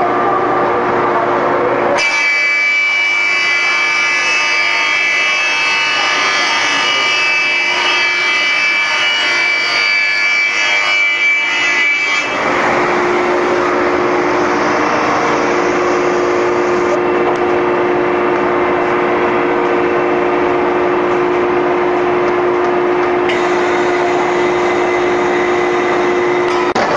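Industrial wide belt sander running: a loud, steady machine noise with a constant low hum. About two seconds in it switches abruptly to a higher whine of several steady tones, and about twelve seconds in it switches back to the low hum.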